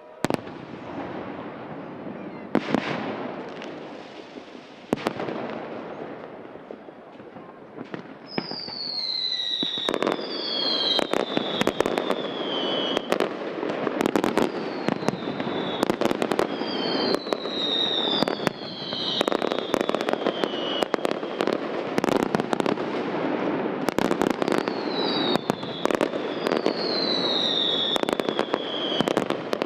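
Fireworks display: aerial shells bursting with sharp bangs and a rumbling tail. The bangs are sparse at first, then from about eight seconds in become a dense barrage mixed with shrill whistling fireworks whose whistles fall in pitch.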